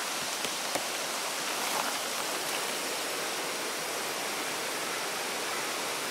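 River rapids rushing steadily: fast shallow water running over rocks, with a few faint small clicks in the first two seconds.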